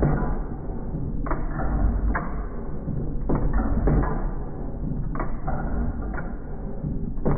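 A 1909 Domestic 1 hp hit-and-miss engine running. Sharp firing reports come at uneven intervals of roughly a second, as the engine alternately fires and coasts, over a steady low mechanical rumble.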